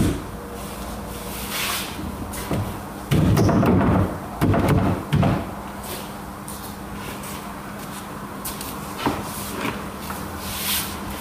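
Wardrobe panels being handled and fitted together: a run of loud knocking and scraping in three bursts about three to five seconds in, a sharp click at the start and a sharp knock about nine seconds in.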